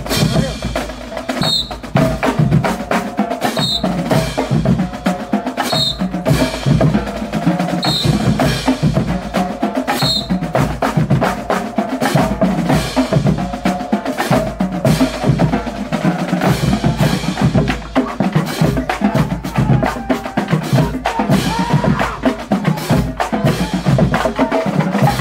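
Marching band drumline of snare drums and bass drums playing a fast, loud cadence.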